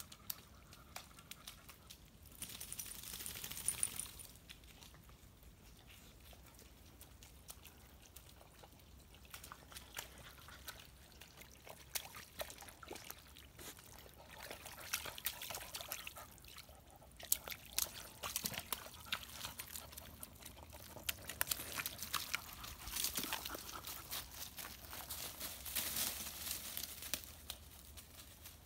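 English cocker spaniel wallowing in a shallow mud puddle: wet sloshing and splashing of mud and water in several bursts, with many small clicks and crackles.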